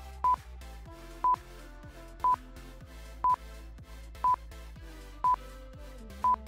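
Countdown timer beeping once a second, seven short beeps of one steady pitch, marking off the time left to answer, over quieter background music.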